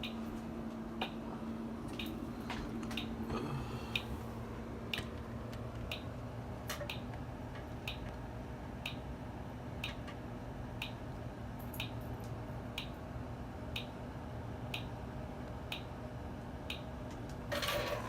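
Faint, regular ticking, about one tick a second, over a low steady hum, with a brief louder noise near the end.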